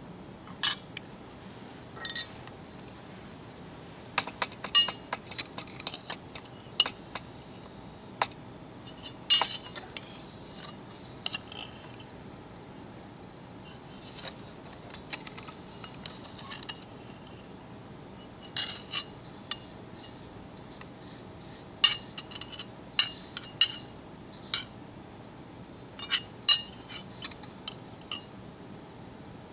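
Metal spatula clinking and scraping against a glass dish as it stirs wet sand under water: irregular sharp taps and clinks, some ringing briefly, coming in clusters with short pauses.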